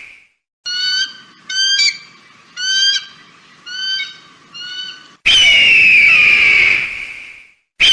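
Eagle calls: a series of about six short, high, chirping calls, then a long, loud scream that falls in pitch, with another scream beginning at the very end.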